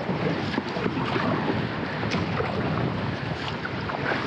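Choppy seawater lapping and splashing against an inflatable kayak as it drifts in on the surf, with a steady rumble of wind on the microphone.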